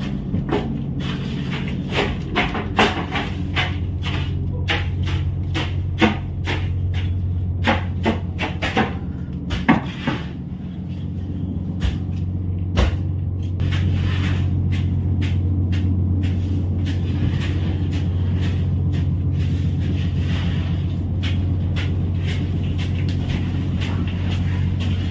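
A fishing boat's engine runs steadily with a low hum that grows louder about halfway through. In the first ten seconds, a quick series of sharp knocks and clatters sounds over it.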